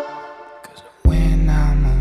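Background music: a quiet stretch, then a deep sustained bass chord comes in about a second in.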